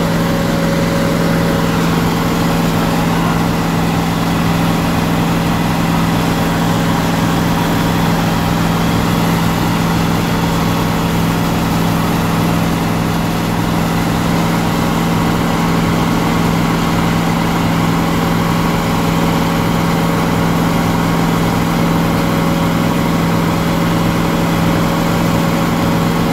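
A large engine running steadily at constant speed, a low, even drone that does not rise or fall.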